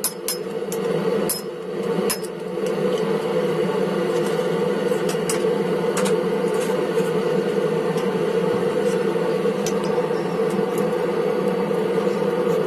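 Forge blower running with a steady hum, with a few light metallic clicks in the first couple of seconds and one near the middle.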